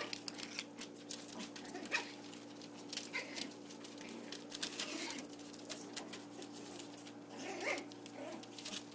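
Pomchi puppies playing, giving a few short, high puppy whines or yips, over many small clicks and scuffles.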